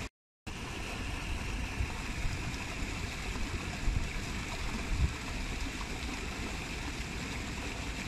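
Steady rush of falling, splashing water from a small cascade. It cuts out completely for about a third of a second just after the start, and a few louder low splashes come about four and five seconds in.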